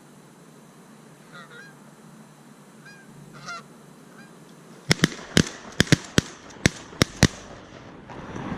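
Faint goose honks, then a rapid volley of about eight shotgun shots over two to three seconds, starting about five seconds in.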